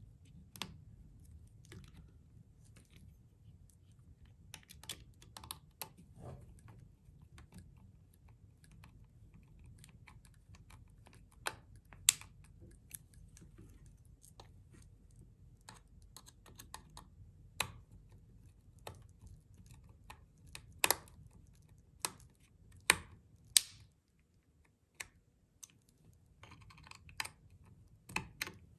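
A small screwdriver driving tiny screws into a cover plate on a plastic security camera housing. Irregular light clicks and taps of the tool, screws and plastic, with a few sharper, louder clicks in the second half.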